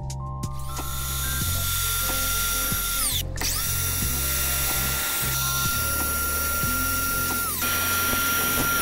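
Miter saw with a red blade cutting a metal tile edge-trim profile. The motor whines up to speed and winds down about three seconds in, then starts again and runs until near the end. Background music plays underneath.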